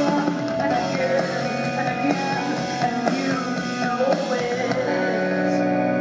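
A live rock band playing with a woman singing over it. About four and a half seconds in, the singing gives way to a steady held chord.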